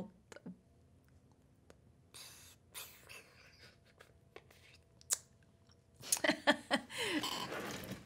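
Faint scattered clicks and small handling noises, then from about six seconds in a louder run of clicks, rustling and a short falling creak as a person gets up out of a gaming chair.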